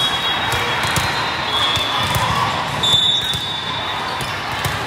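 Volleyball hall ambience: volleyballs being hit and striking the floor on several courts, over the steady hum of players and spectators. Short, high referee whistles sound a few times, the loudest about three seconds in.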